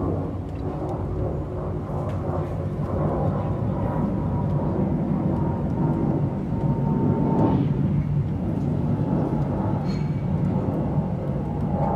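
Airbus A319-100 jet airliner passing high overhead: a steady low engine rumble that swells gradually, loudest about seven or eight seconds in, with a faint whine that slides slightly down in pitch.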